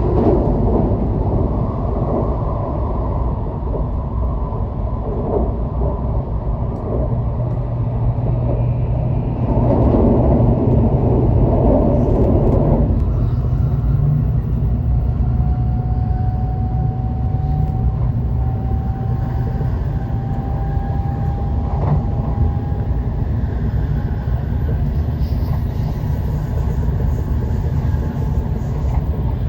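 Tokaido Shinkansen train running, a steady low rumble of the car on the track heard from inside the car. About ten seconds in there is a louder rush of noise for a few seconds. Through the second half a faint whine rises slowly in pitch.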